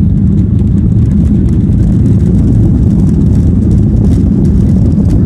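Boeing 737-800's CFM56-7B turbofan engines at takeoff thrust during the takeoff roll, heard inside the cabin as a loud, steady low rumble.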